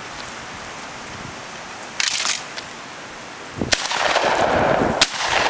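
A shotgun fires twice, a little over a second apart, at a thrown clay target. A loud rushing noise follows the first shot.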